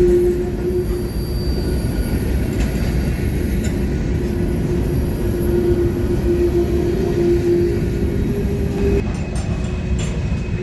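CSX freight train rolling along the wye track with a steady rumble and a continuous squeal from its wheels on the curve.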